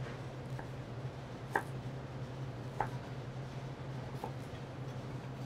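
Chef's knife cutting parsnip on a plastic cutting board: a few sharp knocks of the blade meeting the board, roughly one a second, the loudest about a second and a half in, over a steady low hum.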